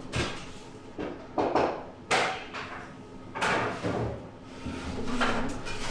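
A series of about six short scraping and knocking noises from objects being handled, spread over a few seconds, the loudest about two seconds in.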